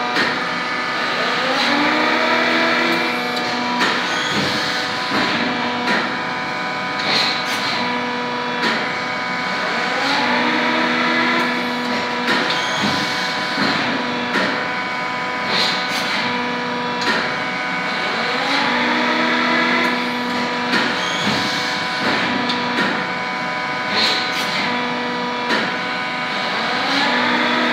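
Billion 140-ton hydraulic injection moulding machine running on automatic cycle. A steady hydraulic pump hum carries a whine that rises in pitch once each cycle, and short clunks and clicks of the valves and moving mould repeat through each cycle.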